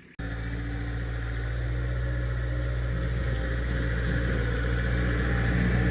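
A vehicle engine running steadily, cutting in abruptly just after the start and growing gradually louder.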